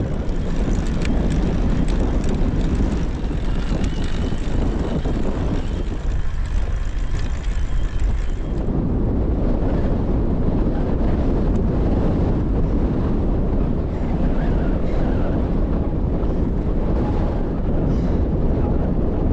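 Strong headwind blowing across the microphone of a camera on a moving recumbent e-trike: a loud, steady rumble of wind noise.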